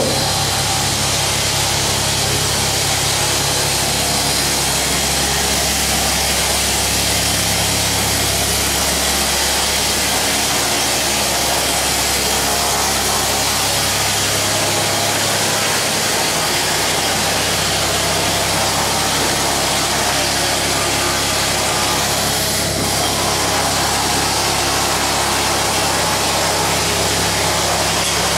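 A machine running steadily: a low engine-like hum with a strong hiss above it.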